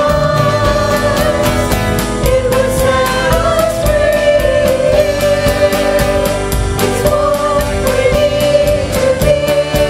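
Live church worship band playing a contemporary Christian song: women's voices singing long held notes over acoustic guitar and a steady beat.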